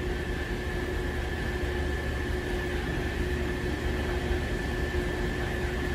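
Highland Park lapidary slab saw running with its 24-inch diamond blade spinning: a steady motor hum with an even mid-pitched tone and a fainter high whine.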